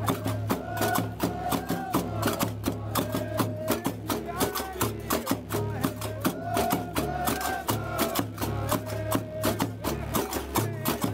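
Live North African festival music: iron qraqeb castanets clacking in a fast, dense rhythm over large double-headed drums and frame drums, with men's voices chanting a melody.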